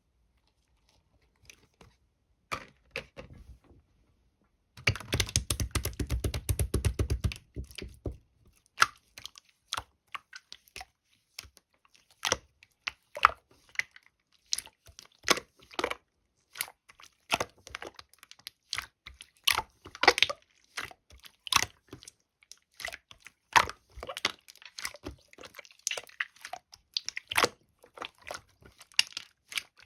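Clear slime being worked by hand: sticky clicks and pops as it is pressed, stretched and folded, with a dense run of crackling about five seconds in that lasts a few seconds.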